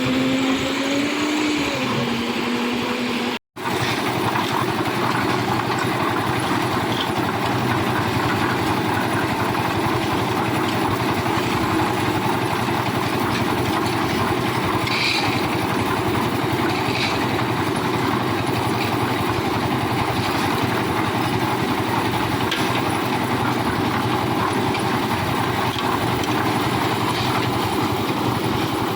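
Concrete mixer machine's engine running steadily under load, with a short dropout about three and a half seconds in.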